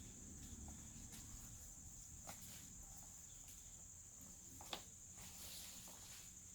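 Steady high-pitched insect trilling, like crickets, running low under a few faint rustles and soft clicks of hands sorting through soil and sweet potato vines, with one sharper click about three-quarters of the way through.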